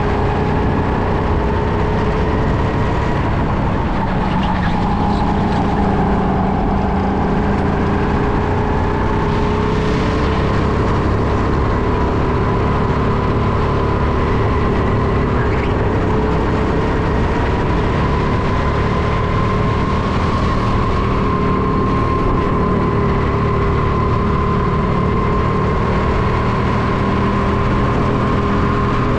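Go-kart's motor running under way at lap speed, heard from the driver's helmet, its pitch drifting slowly up and down through corners and straights over a steady rush of noise.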